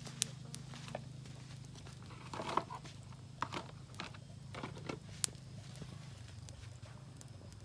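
Scattered light clicks and knocks of footsteps and of things handled at a metal chair as someone walks up and sits down, over a steady low hum.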